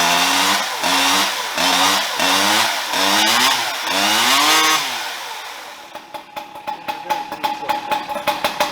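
Two-stroke Husqvarna 592 XP chainsaw with a bolt-on expansion pipe, blipped repeatedly in short revs a little under a second apart. About five seconds in it dies away, and fast irregular clicking follows as it runs down.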